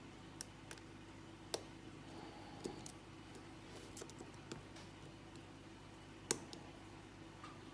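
Faint, irregular sharp metallic clicks from a hook pick lifting the pin stacks of a Lockwood 334B45 padlock held under tension, about nine in all, the loudest about six seconds in. The clicks come from pins setting, with clicks everywhere, as in a lock with tricky pinning that is hard to read.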